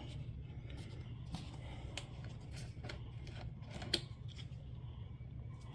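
Scattered small clicks and taps of a plastic funnel and oil bottle being handled, the sharpest about four seconds in, over a steady low hum.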